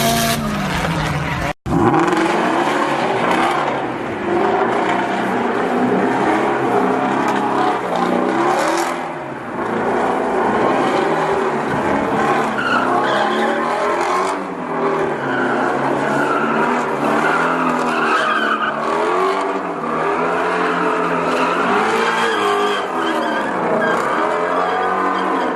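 Ford Mustang doing donuts: engine revs rising and falling over and over, about every two seconds, with tyres squealing and skidding. The sound cuts out for an instant about a second and a half in.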